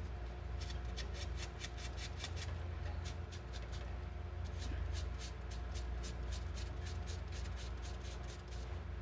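A fine-grit sanding pad rubbed quickly back and forth over a small metal banjo spike, smoothing its filed tip: three runs of short scratchy strokes at about four or five a second, with a brief pause after the first and second runs.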